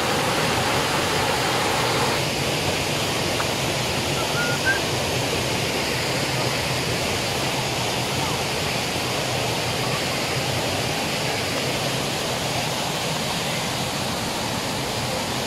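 Waterfall rushing, a steady dense hiss of falling water.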